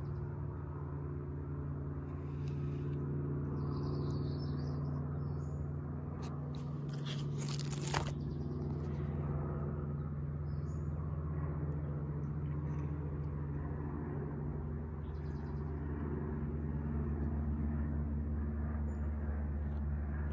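Steady low mechanical hum of a running motor, with faint short bird chirps now and then and one sharp click about eight seconds in.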